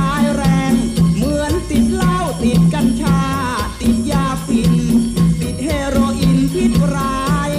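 Classic Thai luk thung music: a melody of gliding phrases over a steady bass-and-drum beat, with rattling percussion ticking along.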